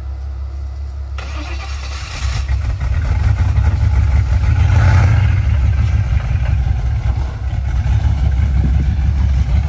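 Off-road vehicle engine running with a low, steady hum, then revving louder about two seconds in. It is strongest around the middle, eases briefly, and picks up again near the end.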